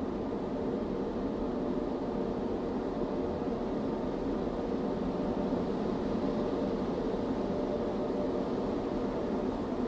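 Automatic car wash running, heard from inside the car's cabin: a steady, muffled hum and rush with a faint tone held through it.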